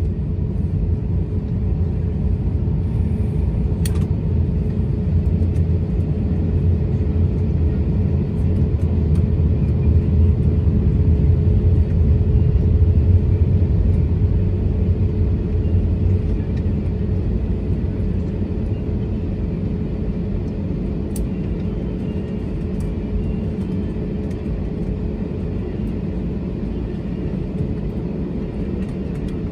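Cabin noise of an Airbus A321neo on the ground with its engines at idle: a steady low rumble with a constant hum, swelling slightly about ten seconds in and easing off toward the end.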